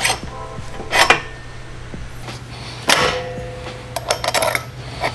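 Steel washers and axle spacers clinking against a mini bike's front axle and hub as they are slid on by hand: several short metallic clinks with a brief ring, a quick cluster of them near the end.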